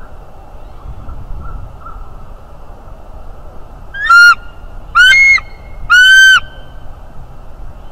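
Bald eagle calling: three loud, high notes about a second apart, starting about four seconds in.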